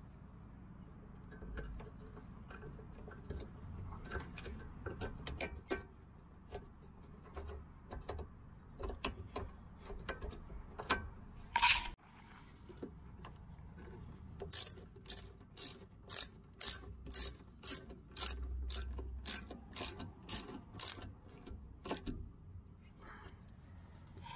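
Ratchet wrench clicking as the brake hose bracket bolt is done up, a steady run of about three clicks a second in the second half. Before that come scattered metal clicks and clinks of the bolt and tools being handled.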